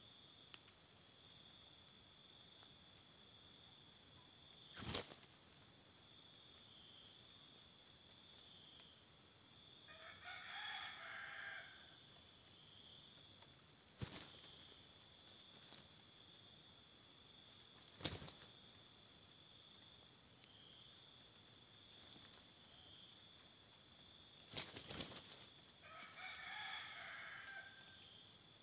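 Rooster crowing twice, once about ten seconds in and again near the end, over a steady high-pitched insect chorus. A few short sharp knocks come between the crows.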